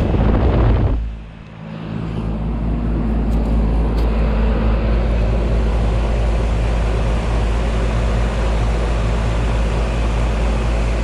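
Steady low hum of running heat pump outdoor units, compressor and condenser fan, with a deep rumble underneath. It dips briefly about a second in.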